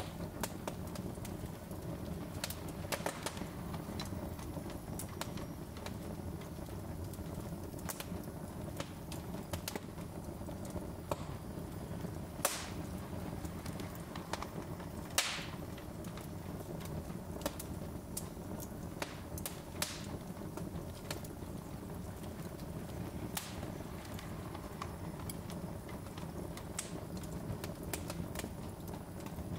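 Wood logs burning in a fireplace: a steady low rumble of flames with irregular crackles and pops, two sharper pops standing out near the middle.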